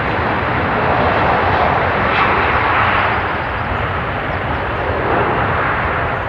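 Boeing 757 airliner's jet engines at takeoff power: a loud, steady rushing roar.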